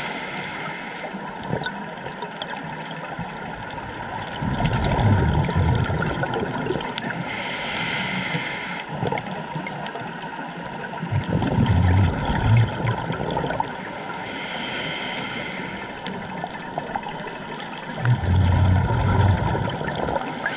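Scuba diver breathing through a regulator, heard underwater: three rounds of exhaled bubbles rumbling, about seven seconds apart, with a hiss between them over a steady wash of water.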